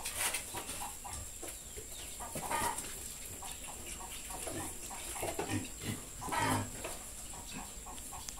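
Farm animals calling in short, irregular calls, with the loudest cluster between about five and six and a half seconds in.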